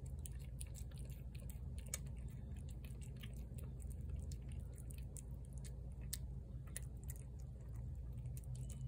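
Cat chewing chunks of wet cat food off a plate: a run of short, irregular wet clicks and smacks, over a steady low hum.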